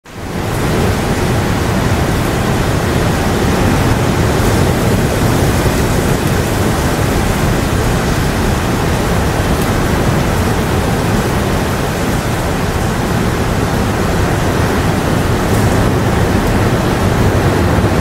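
Steady rain, a dense even hiss with a strong low rumble, fading in over the first second.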